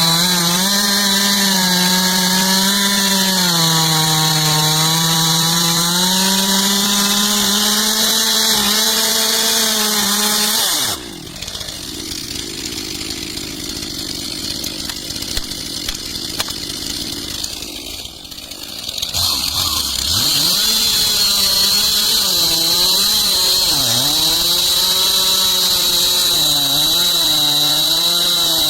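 Stihl MS 362 two-stroke chainsaw cutting into a tree trunk at full throttle, its pitch wavering and dipping as the chain bites into the wood. About eleven seconds in it drops to a quieter, lower running for about eight seconds, then revs back up and cuts again.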